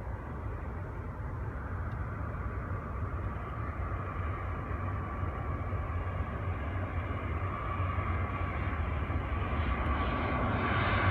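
Jet airliner's engines heard as a steady noise with a faint whine, growing gradually louder as the aircraft approaches, over a constant low rumble.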